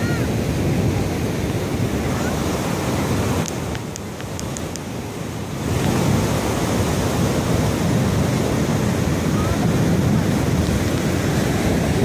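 Rough storm surf breaking and washing up the beach, a steady rush of waves with wind buffeting the microphone; it eases a little around four seconds in and swells again near six.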